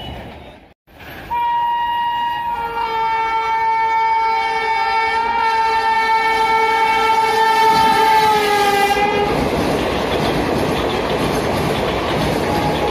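Express locomotive's air horn sounding one long, steady two-tone blast of about eight seconds as the train approaches at speed. It stops about nine seconds in, and the passenger coaches run past with loud, steady wheel-and-rail noise.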